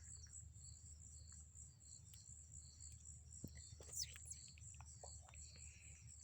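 Faint, steady high-pitched trilling of insects, pulsing evenly, over a low rumble, with a single short chirp about four seconds in.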